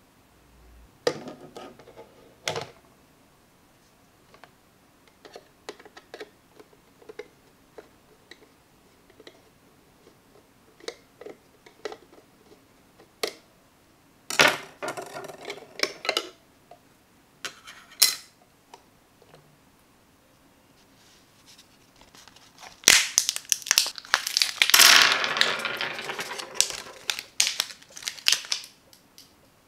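Handling a small hard-plastic lamp while opening its battery compartment: scattered light clicks and taps, a short spell of scraping and rattling about halfway through, and a longer, louder stretch of plastic clatter and rattling in the last quarter as the battery cover comes off and AAA batteries are set on a wooden table.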